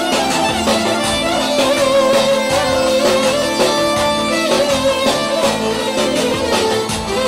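Live band dance music: an ornamented lead melody held and bent over a steady beat.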